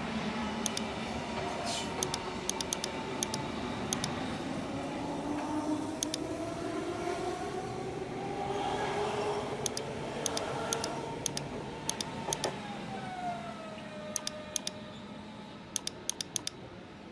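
Computer mouse clicks, sharp and short, some in quick runs of two or three, over a steady background with slow rising and falling tones like passing traffic.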